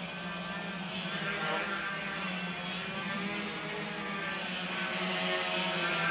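A 450-size quadcopter's four electric motors and propellers buzzing in flight. The pitch wavers up and down as the motors change speed, and the sound grows a little louder near the end.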